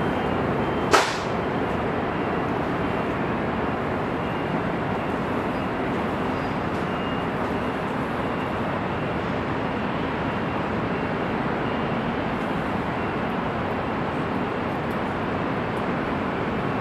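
Steady noise of heavy freeway traffic, many vehicles passing in a continuous hum of tyres and engines, with one sharp click about a second in.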